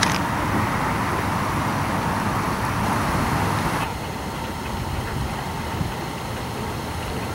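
Steady rushing outdoor noise, changing in tone about four seconds in.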